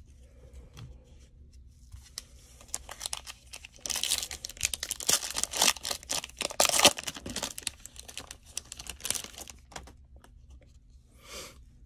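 A plastic cello pack of Panini Prizm basketball cards torn open by hand: a crackle of crinkling, tearing wrapper, loudest in the middle and trailing off into a few light rustles.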